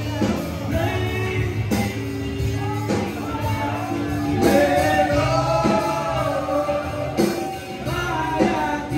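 Live rock band playing: a male singer over electric guitars, bass and drums, with drum hits every second or so.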